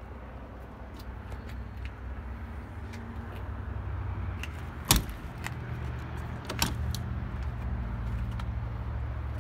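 Can-Am Commander 1000's V-twin engine idling as a steady low hum, with scattered light clicks. There is a sharp knock about five seconds in and a lighter one a second and a half later.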